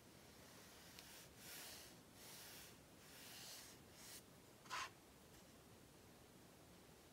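Faint, soft swishes of a paintbrush stroking wet paint across watercolour paper, several strokes in a row, with one short, sharper sound a little before the five-second mark.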